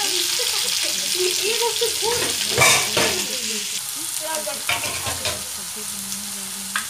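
Potato pieces sizzling in hot oil in a wok, stirred with a spatula that scrapes and knocks against the pan several times. The loudest knock comes about two and a half seconds in.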